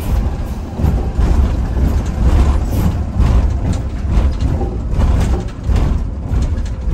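Bus running, with a heavy low engine and road rumble and frequent irregular rattles and knocks.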